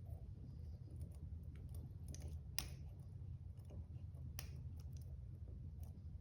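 A few faint, sharp metallic clicks, three standing out, from lock picks working in a laminated steel padlock, over a steady low hum.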